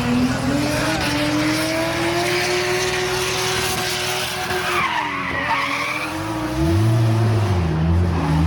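Car engine held at high revs with tyres skidding, as in drifting. About six seconds in, a second, lower engine note comes in, rising and falling.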